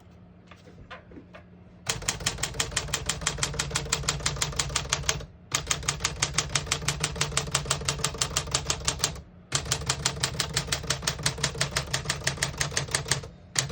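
1956 Smith-Corona Clipper portable typewriter being typed on fast, about eight key strikes a second, in three runs with brief pauses between. It has a crisp clipping sound, with the keys striking evenly and none skipping or sticking.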